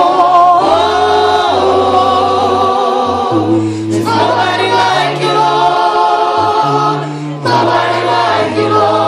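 A church congregation and song leaders singing a gospel worship song a cappella in several parts, the voices holding chords with vibrato and moving together to a new chord every second or two.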